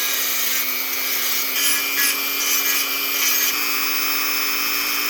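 Vintage Dremel Model 395 Type 5 rotary tool running with a steady whine, working on wood. Its pitch steps up slightly about three and a half seconds in.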